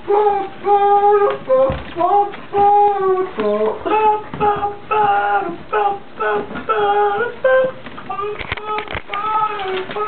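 A high-pitched human voice making a rapid string of short, wordless held notes, each under a second and bending in pitch at its end.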